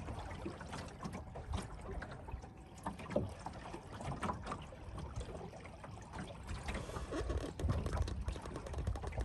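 Water lapping and splashing irregularly against the hull of a small sailing dinghy under way, with a low rumble that grows stronger near the end.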